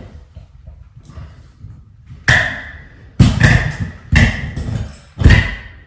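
Four loud knocks about a second apart, each followed by a short ringing tone that fades, from a hand tool striking the metal ceiling light fixture.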